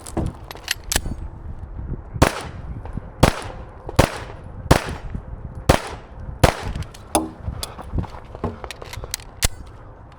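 A string of pistol shots fired in a timed defensive-pistol course of fire: about six loud sharp reports roughly a second apart, between about two and seven seconds in, with fainter sharp cracks in between and after.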